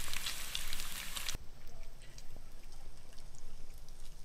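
Bacon sizzling and crackling in a hot pan, a dense hiss with many small pops, which cuts off abruptly about a second and a half in; what follows is quiet outdoor background with a few faint ticks.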